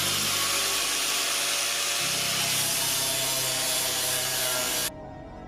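Angle grinder with a flap disc grinding, a loud steady hissing noise that stops abruptly near the end. Background music with low sustained chords plays underneath.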